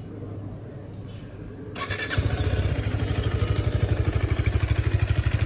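Husqvarna Svartpilen 250's single-cylinder engine starting: a short burst from the starter a little under two seconds in, then the engine catches and settles into a steady, rapidly pulsing idle through the stock exhaust.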